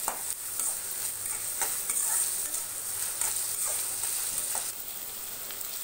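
Chopped onions sizzling steadily in hot oil in a steel kadai, with a metal spoon scraping and clicking against the pan now and then as they are stirred toward golden brown.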